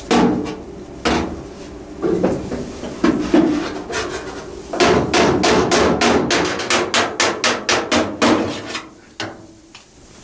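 Hammer and dolly striking the steel roof panel of a 1932 Ford five-window coupe, knocking a cut and tacked roof-chop seam back into line. A few separate blows come first, then about five seconds in a fast run of strikes, about four a second, which dies away near the end.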